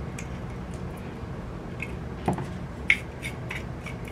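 Small clicks and light taps of hand tools and small camera parts being handled and set down, with a soft knock a little over two seconds in and a sharper click just after, over a low steady hum.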